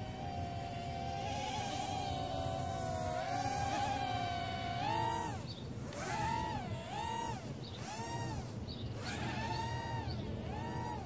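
Blade Nano QX FPV micro quadcopter's Micro Motor Warehouse 6 mm fast motors and props whining in flight. The pitch holds fairly steady for about five seconds, then rises and falls again and again, about once a second, as the throttle is worked.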